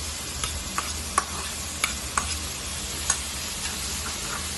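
Carrots, beans and bell peppers sizzling in butter in a pan while being stirred, with a steady hiss and sharp clicks of the stirring utensil against the pan every half second to second.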